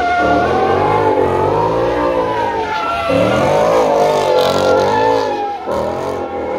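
Car engine revving hard while the car spins donuts, its pitch rising and falling over and over as the throttle is worked, with the rear tyres spinning and smoking.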